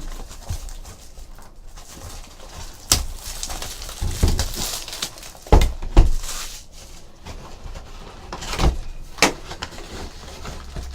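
A sealed box of trading-card packs being unwrapped and opened by hand: plastic wrap and cardboard rustling, with several sharp knocks and taps as the box and packs are handled.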